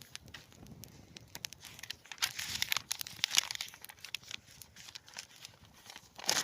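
Paper being crumpled and torn: a run of crinkling, rustling clicks, busiest about two to three and a half seconds in.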